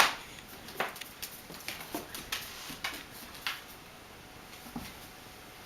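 Standard poodle puppy chewing and mouthing a chew toy: scattered soft clicks and taps, about two a second at first, thinning out after three seconds or so.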